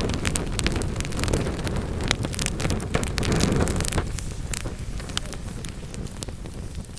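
Wood fire burning in a fireplace: a low rumble of flames under frequent sharp crackles and pops from the burning logs. The rumble eases off a little after about four seconds while the crackling goes on.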